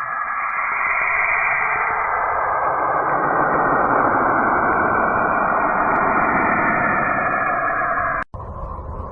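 Sonification of space data: a dense, rushing noise that grows louder over the first few seconds, then cuts off abruptly about eight seconds in and gives way to a quieter, deeper rumble.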